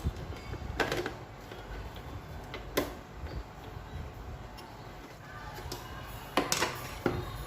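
A few sharp clicks and knocks of parts being handled while an evaporative air cooler is taken apart or put back together, over a steady low rumble. The loudest knocks come near the middle and near the end.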